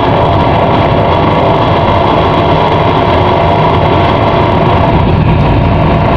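Ship's engines and machinery running with a steady low drone and a few steady tones above it.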